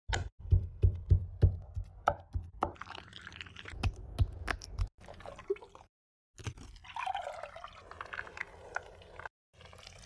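Food-preparation sounds: a quick run of dull thumps of raw meat hitting a wooden cutting board, then sharp clicks, and after a brief break, wet squishy sounds of minced meat being mixed.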